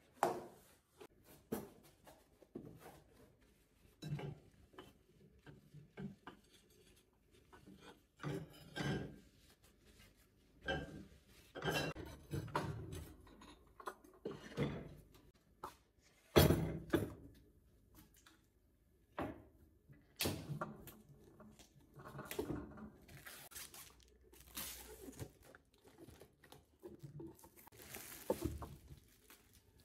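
Handling noises: packaging and small cardboard boxes rustling and knocking, then ceramic plates and bowls clinking and knocking together as they are stacked on a table. Scattered separate knocks throughout, the loudest a little past the middle.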